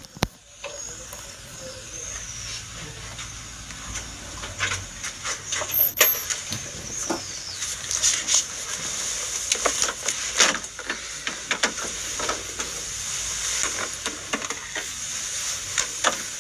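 Steady background hiss with scattered short clicks and knocks, and a faint low hum in the first few seconds.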